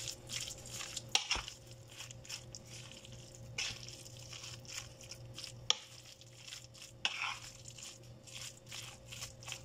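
Fork stirring a thick, wet batter of grated pumpkin and shredded chicken in a bowl: soft squishing and scraping strokes, with a few sharp clicks of the fork against the bowl, over a faint steady hum.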